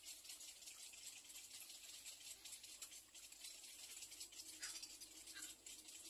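Near silence: a faint steady hiss with light crackling, and two brief faint sounds near the end.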